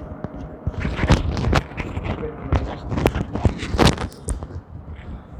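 Handling sounds of hands-on chiropractic treatment: irregular sharp knocks and thuds, about a dozen spread over several seconds, some close together.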